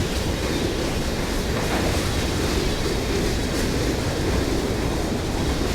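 BNSF container train rolling past: a steady rumble of wheels on rail, with wind buffeting the microphone.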